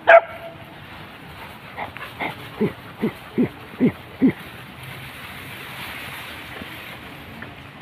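Hunting dog barking, a quick run of about seven barks at roughly two a second, opened by one sharp, high cry that falls in pitch.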